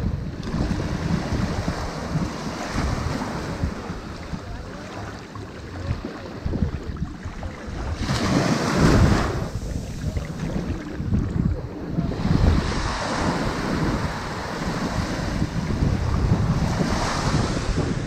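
Sea waves breaking one after another on a shingle beach, a rushing wash that swells and fades every few seconds, the loudest surge about nine seconds in.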